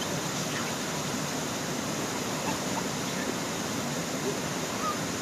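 Steady, even rushing noise with no clear source, with a few faint short chirps near the end.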